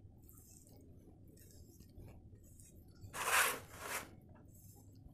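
Kitchen knife scoring a raw chicken breast on a plastic cutting board: faint scratchy strokes, then a louder scraping stroke about three seconds in, followed by a shorter one.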